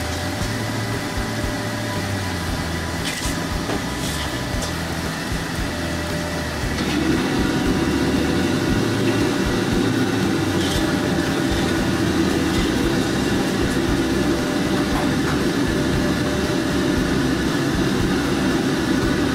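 Steady machine-like rumble and hiss with a faint hum, growing louder about seven seconds in.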